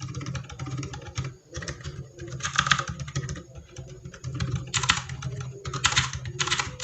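Rapid typing on a mechanical keyboard fitted with Outemu switches, a mix of silent and clicky ones, in quick runs of keystrokes with a few louder clusters.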